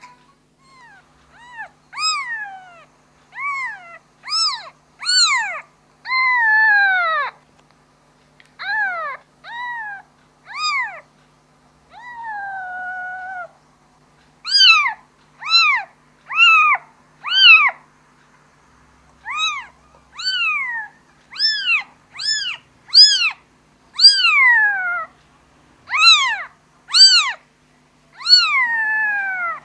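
A kitten meowing over and over, calling for its mother: high-pitched, short calls that rise and fall, repeated roughly once a second with brief gaps. A few calls are longer and slide downward in pitch.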